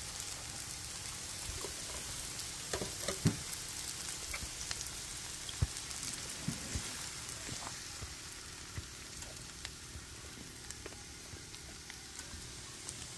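Diced potatoes, chives and onions sizzling in a skillet as beaten eggs are poured in, with scattered clicks from a fork scraping the bowl.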